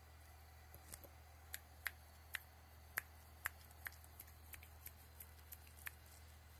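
A dog chewing a hard rubber Kong Widget toy: a string of about fifteen faint, sharp clicks of teeth on rubber at uneven intervals, roughly two or three a second, over about five seconds.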